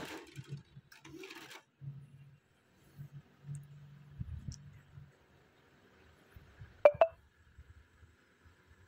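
Faint low background hum, then a quick pair of short electronic beeps about seven seconds in.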